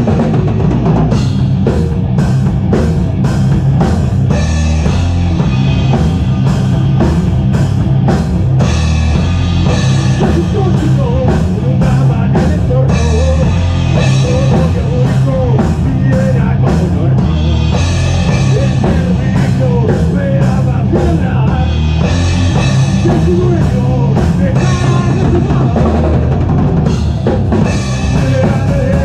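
Doom/stoner rock band playing live at full volume: a pounding drum kit with heavy bass drum under thick, distorted low guitar and bass, picked up by a single camera microphone in the rehearsal room.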